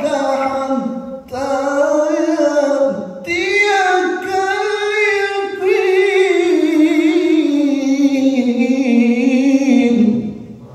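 Male Quran reciter's voice in melodic tajweed recitation, drawing out long ornamented held notes with a strong waver. It comes in four drawn-out phrases, the last sinking in pitch before it stops about ten seconds in.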